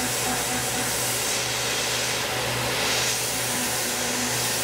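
Tormach 1100M CNC mill running, a small end mill cutting a part held in a vise, under a steady hiss from the two coolant spray nozzles. The hiss swells between about one and three seconds in.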